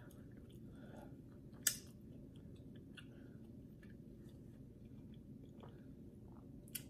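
A person quietly chewing food close to the microphone, with faint mouth ticks. There are two sharp clicks, one about a second and a half in and one near the end, over a steady low room hum.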